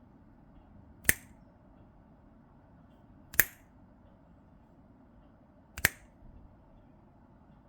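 Three sharp clicks, about two and a half seconds apart, each with a short ringing tail.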